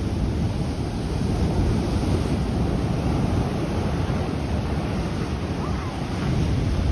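Ocean surf washing over a rocky shoreline, a steady rush of water with wind rumbling on the microphone.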